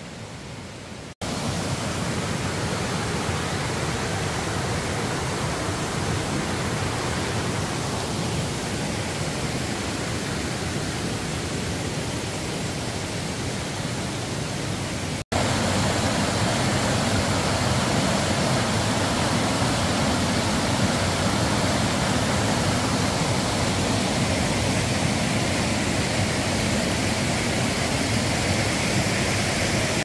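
Steady rush of water pouring down a tiered waterfall. It sets in about a second in and steps up louder about halfway through.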